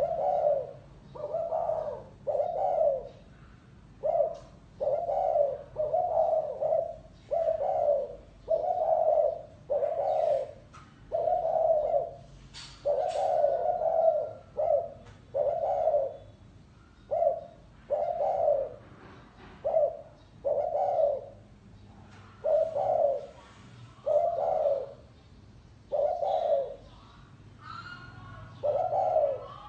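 Spotted dove cooing: a steady series of short, low coos, roughly one a second, in the 'gáy gù' calling style.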